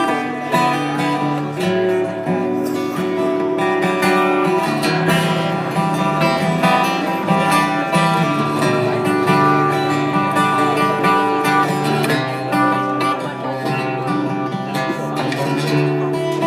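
Acoustic guitar playing live, strummed chords changing every second or two, with no singing.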